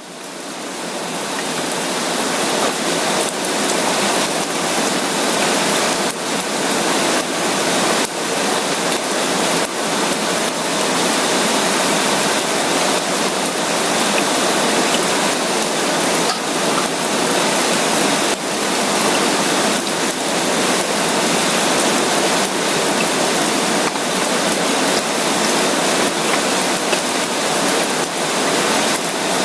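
Steady rain: a dense, even hiss with faint pattering drops, fading in over the first couple of seconds.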